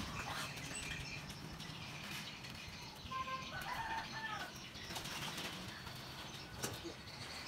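Rubber boots stepping on bamboo ladder rungs and the brick pond rim: scattered light knocks and rustling. A brief chirping bird call comes about three seconds in.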